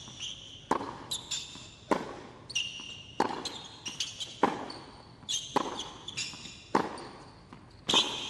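Tennis rally on a hard court: racket strikes on the ball about every second and a quarter, with fainter ball bounces between them and shoes squeaking on the court.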